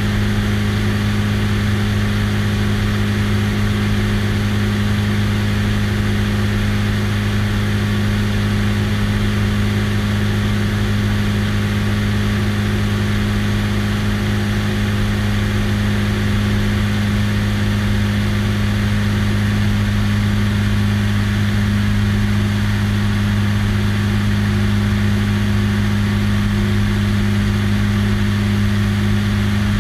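Single-engine biplane's engine and propeller running at a steady cruise setting, an unbroken deep drone, heard from a camera on the wing with the airstream rushing over the microphone.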